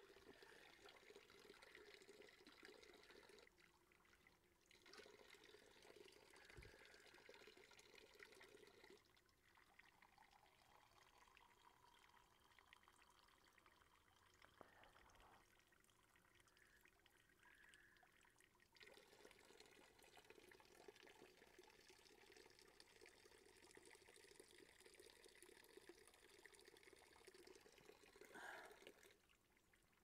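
Faint trickle of spring water from a stone spout pouring into a plastic cup, growing and fading by turns.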